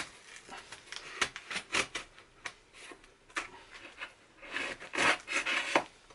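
Butcher knife blade scraping and slicing through the packing tape and cardboard of a shipping box: a string of short scrapes and clicks, thickening into a longer burst of scraping about four and a half seconds in.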